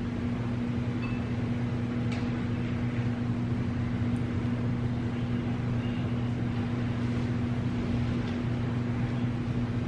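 Steady low electrical hum from a household appliance or ventilation running, with a faint click about two seconds in.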